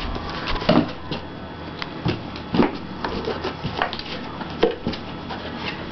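Cardboard shoebox being opened and handled: about half a dozen irregular knocks and scrapes as the box and its contents are moved.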